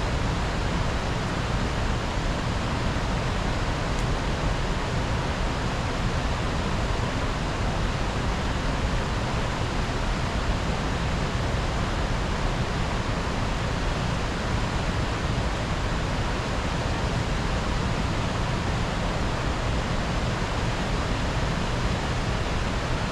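Steady, unbroken rush of flowing river water, an even hiss that does not change.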